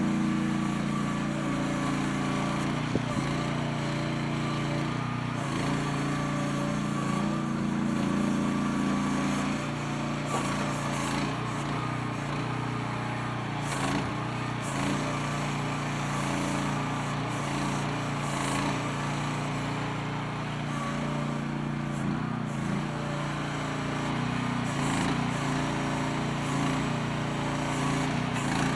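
MIVA VA13 mini excavator's small engine running steadily, its pitch shifting slightly now and then, with a few faint clicks.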